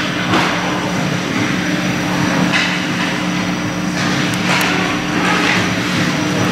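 Ice hockey play: skates scraping and carving on the ice, with a few sharp knocks of sticks and puck, over a steady low hum.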